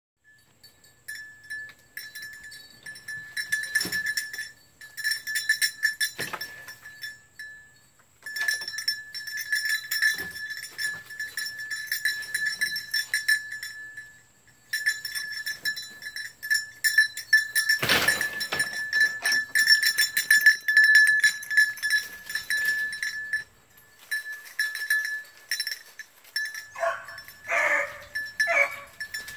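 A puppy gives three short, high yelping barks near the end. Before that, a high, rapid metallic jingling comes in spells of several seconds with short pauses. The puppy is described as tight-mouthed, a hound that gives little voice.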